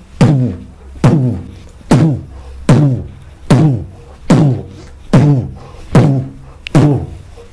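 Beatboxed bass-drum (kick) sound made with the mouth: a hard 'pu' pushed through tightly pressed lips, repeated slowly nine times, a little under once a second. Each stroke is a sharp lip burst followed by a short voiced 'u' that falls in pitch.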